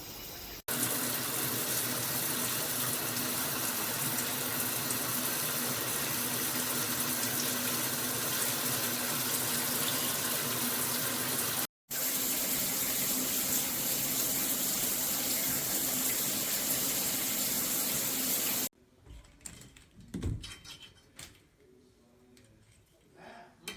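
Moen Engage Magnetix handheld shower head spraying water in a steady hiss. The spray breaks off very briefly near the middle and stops about 19 seconds in, followed by a few faint knocks.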